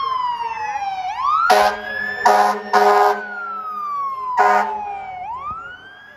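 Fire apparatus siren wailing in slow sweeps, each gliding down and then quickly back up, cut through by four short, loud air horn blasts: three close together in the first half and one more about a second later.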